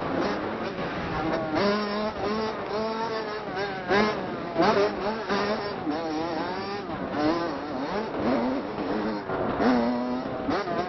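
Motocross dirt bike engine revving up and down as it is ridden, its pitch rising and dropping every second or so through throttle changes and gear shifts, with a few sharp knocks.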